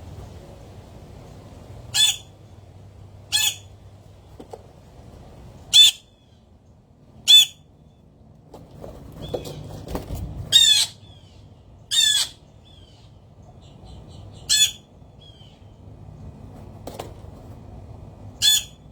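Birds squawking: about eight short, loud, harsh calls, spaced irregularly a second or two apart.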